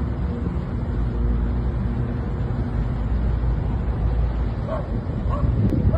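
Wind buffeting the microphone at the waterside, with a steady low engine-like hum for the first few seconds and a few short high calls near the end.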